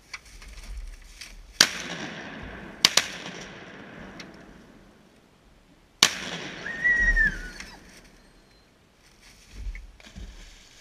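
Shotgun shots over open water: one shot, two almost together about a second later, and a fourth about three seconds after that, each with a short trailing echo. A brief high-pitched tone that bends downward follows the last shot.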